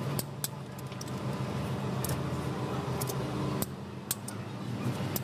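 Sharp metallic clicks and clinks of a socket wrench on the cylinder-head bolts as the head is torqued down, scattered irregularly over a steady low hum.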